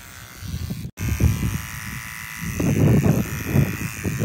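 Electric hair clippers buzzing as they trim a boy's hair at the nape of the neck, under an irregular low rumbling that grows loudest past the middle. The sound cuts out briefly about a second in.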